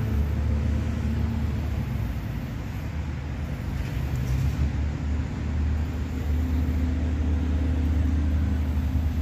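Steady deep rumble of road traffic passing nearby.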